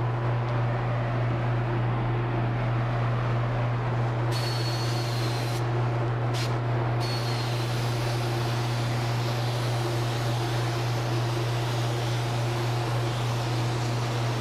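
A motor running steadily: a constant low hum under an even rushing of air.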